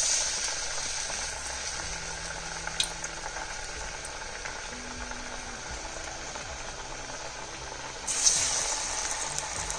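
Masala dal vada patties of split-chickpea batter deep-frying in hot oil, sizzling steadily. The sizzle swells suddenly about eight seconds in.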